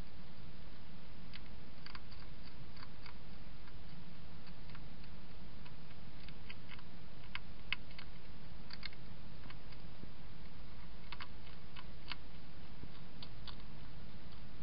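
European hedgehog crunching food from a bowl: irregular sharp clicks and crackles in small clusters, over a steady low hum.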